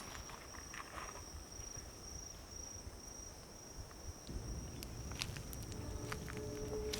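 Insects chirring in a steady, faintly pulsing high tone. Scattered sharp clicks join in over the last two seconds.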